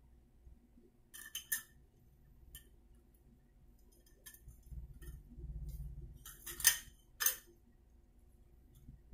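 Chrome metal flush-valve pipe and fittings clinking against each other as they are handled and fitted: a few light clinks about a second in, a low rubbing rumble in the middle, then two sharper clinks under a second apart near the end.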